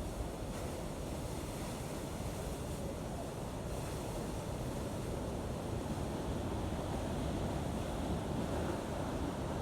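Waterfall making a steady, unbroken rush of water, strongest in the low range.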